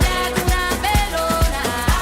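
Dance music from a DJ set: a steady four-on-the-floor kick drum about twice a second under a melodic synth line.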